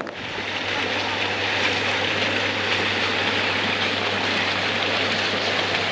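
Small garden fountain's water jets splashing into the basin: a steady rushing splash that swells up within the first second.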